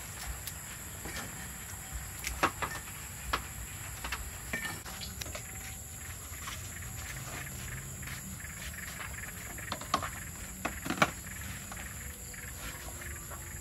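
Scattered clicks and knocks of roast chicken being pulled apart and of a metal tray and plates being handled and set down on a wooden table, over a steady high drone of insects.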